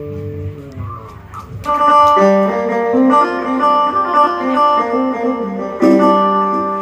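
Live guitar music: plucked, ringing notes that change pitch in a melody, quiet at first and then played louder from about a second and a half in, as in a sound check.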